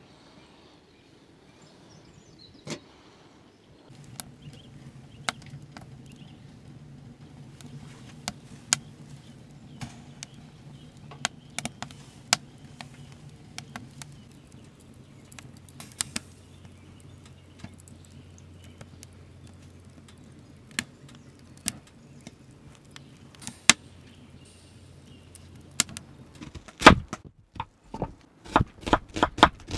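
A steady low hum with scattered sharp clicks, then near the end a knife cutting a potato on a bamboo cutting board in quick, loud knocks.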